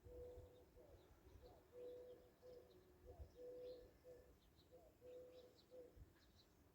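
A dove cooing faintly, a steady run of low coos with short upward turns, repeating every second or so, while small birds chirp faintly in the background.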